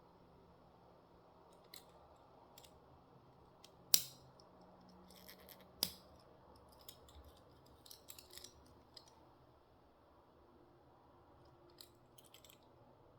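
A Hot Wheels blister pack being opened by hand: scattered small clicks and snips of plastic and cardboard, with two sharper clicks about four and six seconds in.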